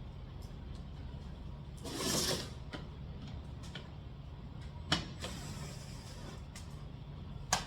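Hand-tool and fastener handling under a car: a short rasping scrape about two seconds in and sharp clicks near five seconds and at the end, over a steady low hum.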